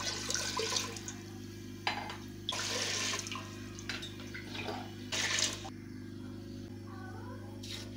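Water running into a metal cooking pot in several short gushes as the pot is rinsed, with a steady low hum underneath.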